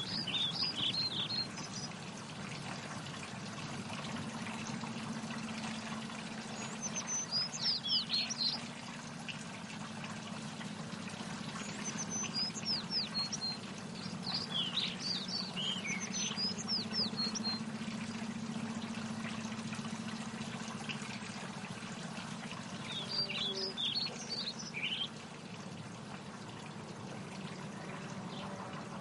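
Birds chirping in short clusters of high calls a few times, over a steady noise of running water.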